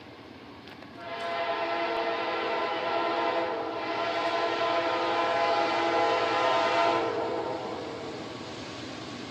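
A CSX freight locomotive's air horn, still some way off, sounds one long chord blast, starting about a second in and stopping about seven seconds in.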